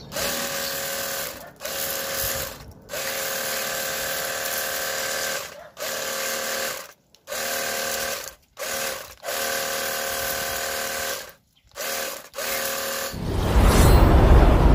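Cordless battery pressure-washer gun spraying water into a scooter's open CVT housing, its pump motor whining in bursts that start and stop with the trigger about nine times. About thirteen seconds in, a loud low rumbling intro sound effect takes over.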